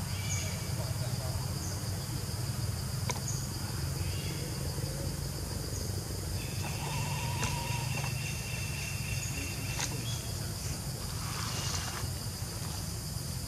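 Steady high-pitched insect chorus in undergrowth, a continuous buzz of crickets or cicadas, over a constant low rumble. A few short, thin chirping tones come and go about halfway through.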